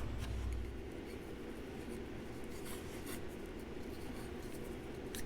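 Utility knife blade scraping and trimming a new power-cord strain relief, heard as a few faint, scratchy strokes.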